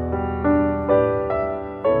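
Background music: a slow, gentle piano piece, notes struck about every half second and left to ring.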